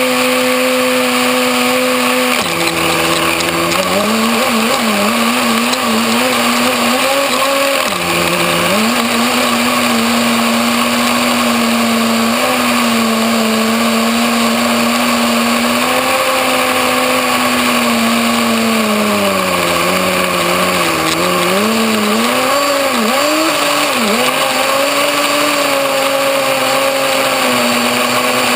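Small nitro glow-fuel engine of a Kyosho Blizzard radio-controlled tracked snow vehicle running at high revs with a high, buzzing hum. The pitch drops briefly twice in the first nine seconds, then dips and wavers up and down for several seconds in the latter part before steadying again.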